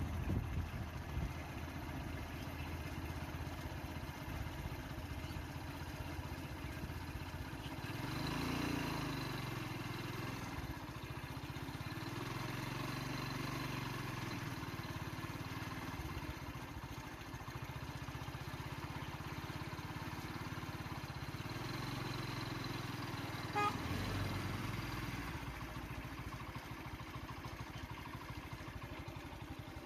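Motor vehicle engines running at low speed: a steady low drone that swells about 8 seconds in and again through the middle of the stretch, with one sharp click near the end.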